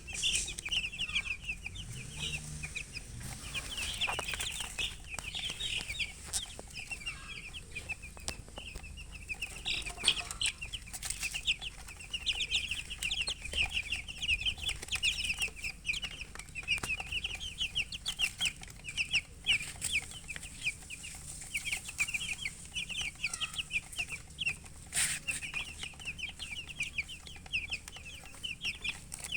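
A group of baby chicks peeping nonstop, many short high calls overlapping, with an occasional sharp click.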